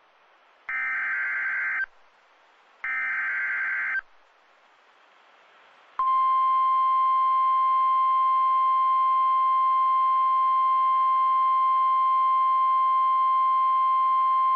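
Emergency Alert System header: two one-second bursts of screechy warbling digital data about two seconds apart. Then, about six seconds in, the steady NOAA Weather Radio 1050 Hz warning alarm tone sounds, signalling a severe thunderstorm warning.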